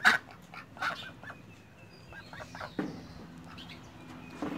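Domestic ducks quacking in short calls, a quick run of them in the first second and a half and a few more later.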